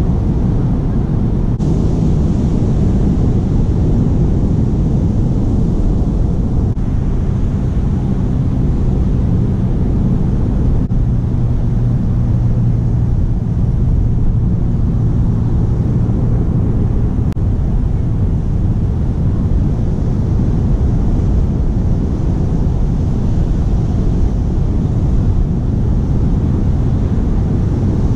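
Wind buffeting the action camera's microphone: a loud, steady low rumble. A faint low hum sits under it for several seconds in the middle.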